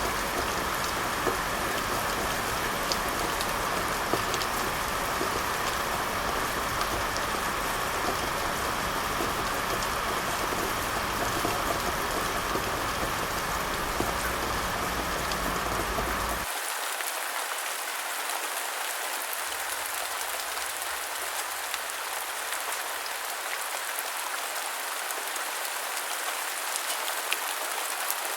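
Steady rain falling, an even hiss with scattered drop ticks. About sixteen seconds in, the sound changes abruptly: the low rumble drops out and the rain turns thinner and hissier.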